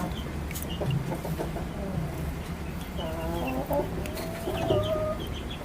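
Chickens clucking, with two drawn-out calls in the middle and repeated short high chirps throughout.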